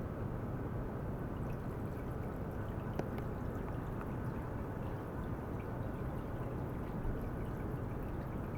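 Water running steadily in a flowing-water ultrasonic tank setup, with faint scattered drip-like ticks over the even rush of the flow.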